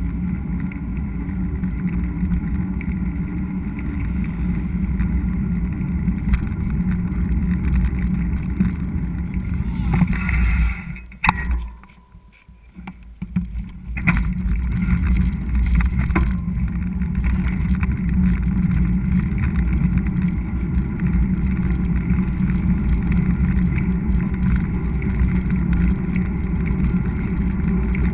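Mountain bike ride with low rumbling wind buffeting on the microphone and riding noise. It drops away for about three seconds near the middle, then comes back as before.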